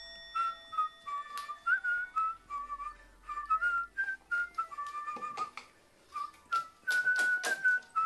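A whistled tune, one clean melody line stepping up and down in short notes, with scattered light clicks and knocks, a cluster of them near the end.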